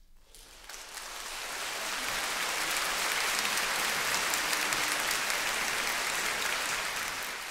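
Concert audience applauding, starting about half a second in, growing over the next couple of seconds into steady, dense clapping, and beginning to ease off near the end.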